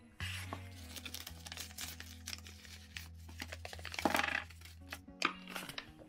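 Kraft paper envelope being handled and opened: paper crinkling and rustling, with a denser crinkle about four seconds in and a light tap a little after five seconds, over soft background music.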